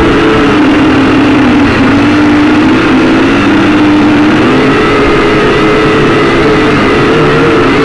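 Syma X5C-1 quadcopter's small motors and propellers whining loudly, heard close up through its own onboard camera microphone. The pitch dips about a second in and climbs again around five seconds as the motors change speed.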